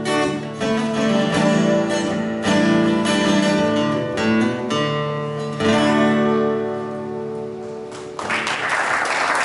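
Two acoustic guitars play the closing bars of a song, ending on a held chord that fades. Audience applause breaks out about eight seconds in.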